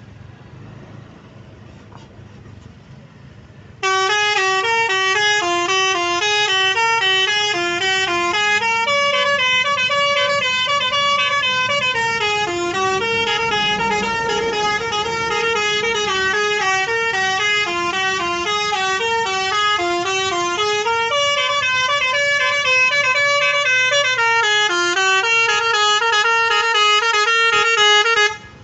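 Indonesian bus 'telolet' musical horn playing a repeating tune of quickly stepping notes, loud and unbroken for about 24 seconds, starting about four seconds in and cutting off suddenly near the end. Under it and before it, a low engine and road rumble.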